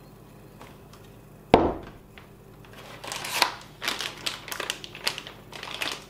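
One sharp knock about a second and a half in as a plastic-cased item is set down on a table, then the irregular crinkling of a foil packet being handled for the last few seconds.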